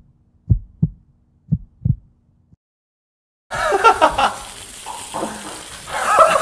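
A heartbeat sound effect: pairs of dull, low lub-dub thumps about once a second, stopping about two seconds in. After a second of silence, kitchen room sound with voices and laughter cuts in.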